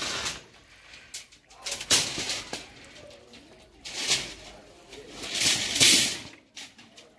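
Coiled steel rebar being straightened by hand with a steel lever bar: the rods scrape and rattle against each other and over brick paving in several short bursts, the longest about three-quarters of the way through.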